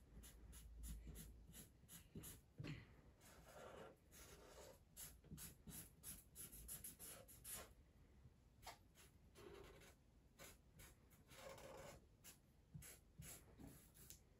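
Felt-tip pen colouring in on paper: a faint, irregular run of quick back-and-forth scratching strokes, with a few longer strokes among them.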